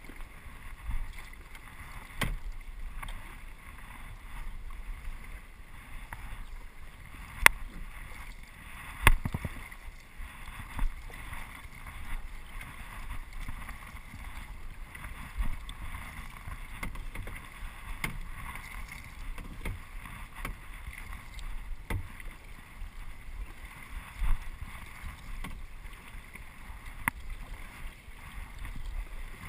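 Kayak paddling: a double-bladed paddle dipping and pulling through the water, with water washing along the hull. Sharp knocks come every few seconds, the loudest about seven and nine seconds in.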